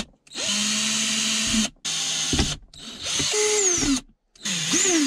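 Cordless drill boring pilot holes through a plastic armrest base into the car's plastic center console, run in about four short bursts on the trigger. The motor pitch dips and rises in the later bursts.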